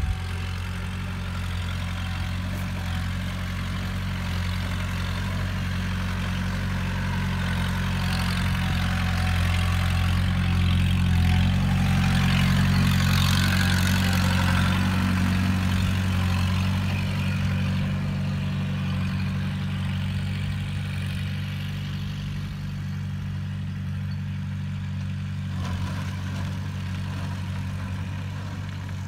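Farm tractor's diesel engine running steadily while it tows a fertilizer spreader, growing louder as it passes close about halfway through and then fading again.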